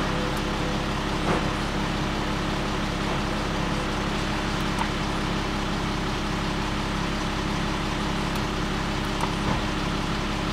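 Steady hum of the Audi Q7's 3.0-litre diesel engine idling, heard from inside the cabin, with a few faint clicks.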